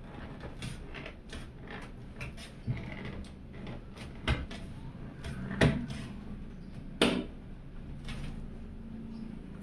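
Hands handling a PC case and its parts: a run of scattered clicks and knocks, with three louder knocks about four, five and a half and seven seconds in.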